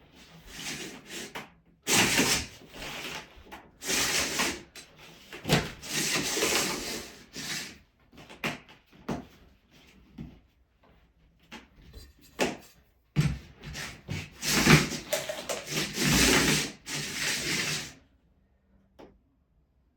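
Irregular bursts of rubbing and scraping as the Ditra-Heat heating cable and plastic membrane are handled and worked on the floor by hand, stopping about two seconds before the end.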